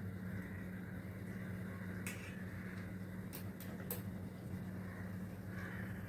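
A steady low hum with a few faint clicks: one about two seconds in, then three quick ones a little over a second later.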